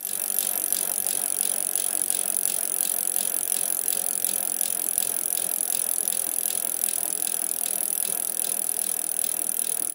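Bicycle in motion: a steady rolling noise with a faint ticking about three times a second.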